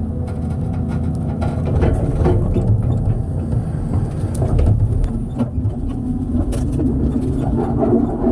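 Heavy diesel machinery engine running steadily under a low rumble, with scattered short knocks and rattles.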